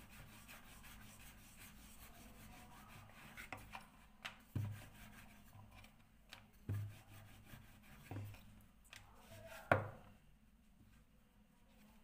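Wooden rolling pin rolling thin dough rounds on a wooden board: a faint, soft rubbing with several light knocks of the pin on the board, the sharpest late on.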